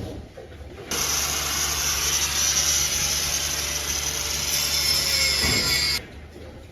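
A loud, steady machine noise starts abruptly about a second in and cuts off suddenly about five seconds later.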